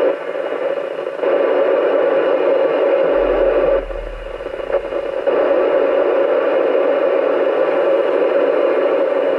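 Steady hiss and static from a Yaesu FT-991A transceiver's speaker, tuned to the ISS amateur radio FM repeater downlink, with no clear voice coming through; the noise dips briefly about a second in and again for about a second midway.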